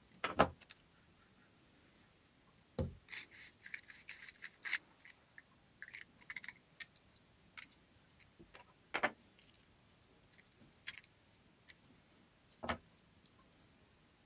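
Small metal drill parts and hand tools being handled and set down on a work surface: separate knocks, the loudest just after the start, with a run of light metallic clinks a few seconds in and further single knocks spaced several seconds apart.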